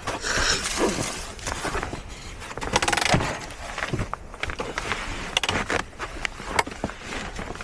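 Handling noises: rustling with scattered clicks and knocks, the loudest cluster about three seconds in.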